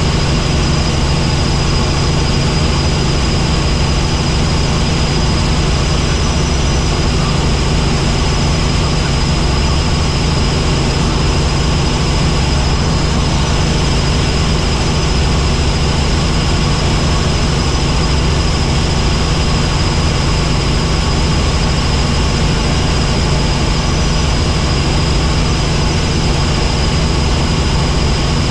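Helicopter in flight: steady, loud rotor and engine noise, a low drone with a thin, steady high whine above it.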